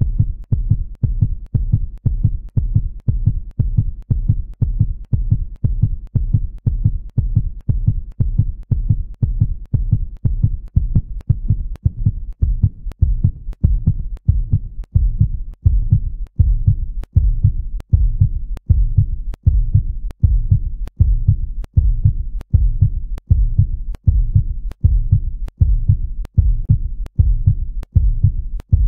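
Heartbeat sound effect on a film soundtrack: a steady run of low thuds, about two a second, getting louder from about halfway through.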